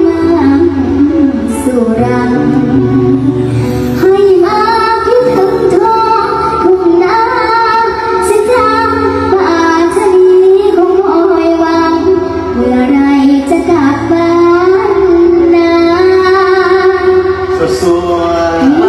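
A young girl singing a song into a microphone over backing music, amplified through a concert sound system.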